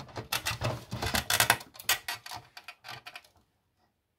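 Quick, irregular clicking and rattling of the Thurlby DSA524 digital storage adapter's enclosure being worked open by hand. The clatter stops about three seconds in.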